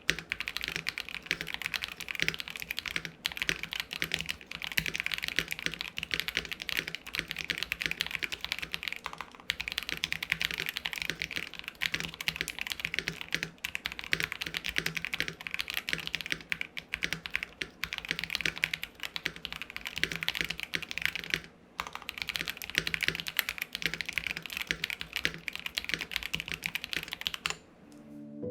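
Mechanical keyboard typed on continuously at a fast pace: a KBD67 Lite R2 with KTT Peach linear switches on a polycarbonate plate, giving a deep, thocky keystroke sound. There is a short pause about three-quarters of the way through, and the typing stops just before the end.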